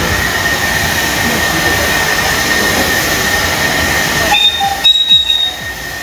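Narrow-gauge steam locomotive 520 KC, a KC-class tank engine built around 1906, hissing steadily as it vents steam while moving slowly. About four seconds in a short, higher-pitched tone sounds over the hiss.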